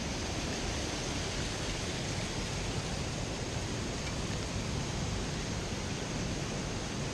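Steady rush of falling and flowing river water, an even hiss with no change in level.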